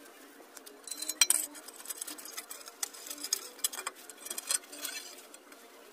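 Wire being passed through drilled holes in a hollow clay brick to tie a wooden straightedge to it: a run of small irregular scrapes, clicks and clinks, starting about a second in.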